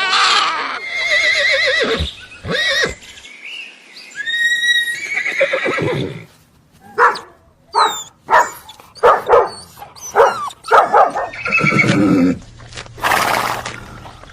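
Horse whinnying: quavering calls that fall in pitch, then a run of short, sharp sounds roughly every half second, and a loud noisy burst near the end.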